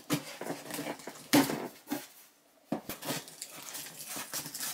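A cardboard parcel being handled and opened: irregular rustling and crinkling of packaging with several sharp knocks, the strongest about a second and a half in, and a short quiet pause about halfway.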